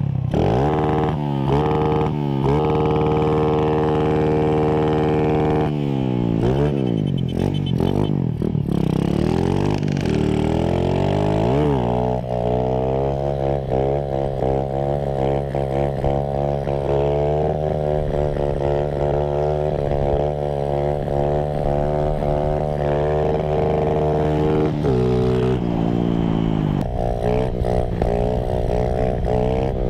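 Small motorcycle engine revving hard under acceleration. Its pitch climbs and drops with each gear change in the first dozen seconds, then holds at steady high revs, with another change in revs near the end.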